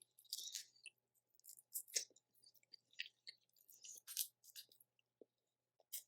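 Faint, close-miked eating of boiled seafood: irregular soft wet clicks and crackles of chewing and of peeling crawfish and crab shells.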